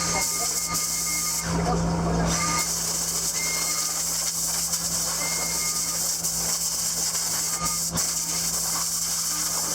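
A steady hiss over a low steady hum, with a brief change about one and a half seconds in when the hiss eases and the hum grows louder.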